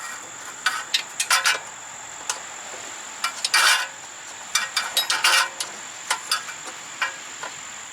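Wrench and metal brake parts clinking and scraping in irregular short clicks as the caliper bolts are worked on, over a steady high drone of insects.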